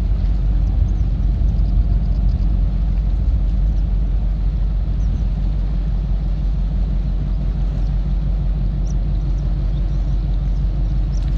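A steady low rumble, even throughout, with a few faint short high chirps over it.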